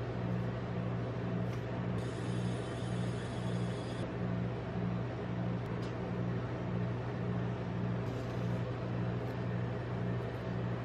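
Steady electric hum of a rolled ice cream machine's refrigeration compressor, a low tone with a regular throb.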